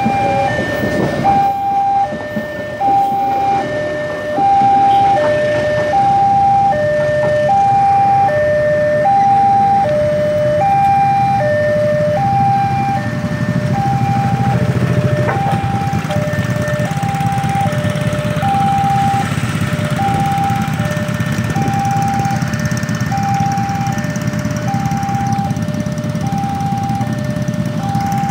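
Railway level-crossing warning alarm sounding a two-tone electronic chime, alternating high and low notes at about one pair a second. Under it, a passing train rumbles at first, then a crowd of motorcycle engines idles at the closed crossing.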